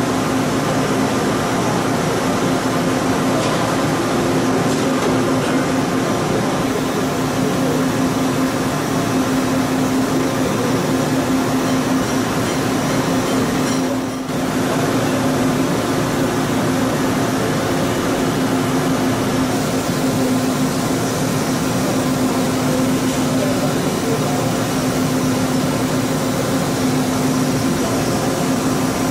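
CNC milling machine cutting a metal mold cavity with a small end mill: a steady machine drone with a constant low hum, dipping briefly about halfway through.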